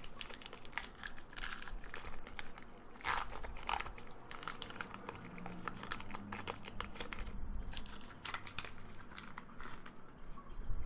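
Foil wrapper of a Pokémon TCG Diamond & Pearl Great Encounters booster pack being torn open and crinkled by hand as the cards are pulled out: an irregular run of sharp crackles, loudest about three and four seconds in.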